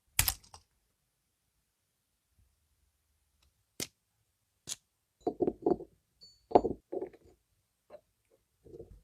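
Scattered sharp clicks and short dull knocks: one loud click right at the start, two more single clicks a second apart near the middle, then a quick run of knocks in the second half with the loudest about two-thirds of the way in, and one last soft knock near the end.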